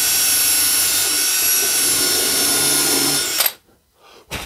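Cordless drill with a countersink bit running at a steady high speed, boring a countersunk hole through MDF, its motor giving a steady whine. The drill stops abruptly about three and a half seconds in, and a single knock follows near the end.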